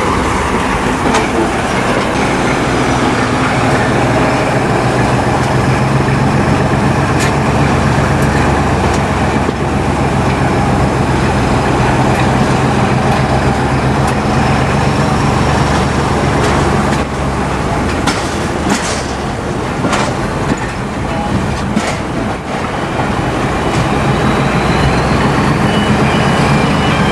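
BR Class 14 diesel-hydraulic shunter D9521's Paxman Ventura engine running steadily while the train is under way, with the rumble of the wheels on the track. A few sharp clicks come about two-thirds of the way through.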